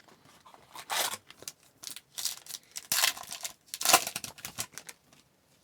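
Hockey trading cards being handled and flipped through, a string of short papery swishes and rustles, the sharpest about one, three and four seconds in.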